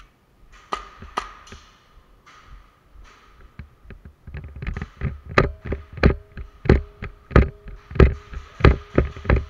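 Footsteps of a person wearing the camera, on a concrete floor: evenly paced thuds about one and a half a second, starting about four seconds in and growing louder, over a faint steady hum. Two sharp clicks about a second in.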